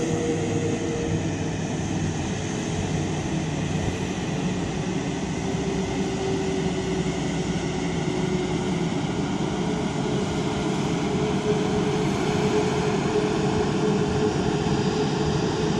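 Rolls-Royce Trent 7000 turbofans of an Airbus A330-900neo running at taxi idle: a steady jet whine and rumble with a hum that wavers a little in pitch.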